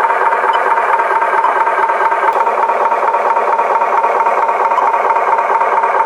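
A toy truck's small motor and plastic gearing whirring steadily with a fast rattle and a constant hum.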